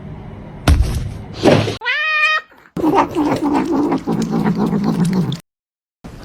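A cat meowing once, a short rising call about two seconds in, after a couple of thumps. After a cut, a lower, wavering sound runs for about three seconds.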